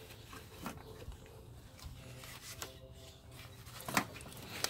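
Faint rubbing and light clicks of parts being handled and pushed aside in an engine bay, with one sharper tick about four seconds in.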